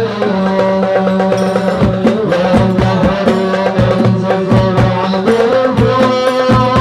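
Islamic devotional song: voices sing the closing words of a blessing on the Prophet, 'wa sallam', over hand drums beating a quick, steady rhythm.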